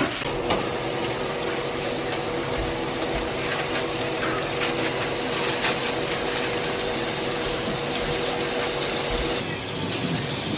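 Meat frying in oil in a pan on a gas stove, a steady sizzle over the steady hum of a kitchen range hood fan. The sizzle drops away abruptly near the end, leaving the fan hum.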